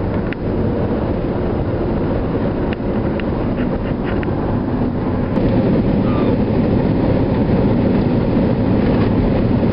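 Steady road and engine rumble inside a moving vehicle's cabin at highway speed, growing a little louder about halfway through, with a few faint ticks.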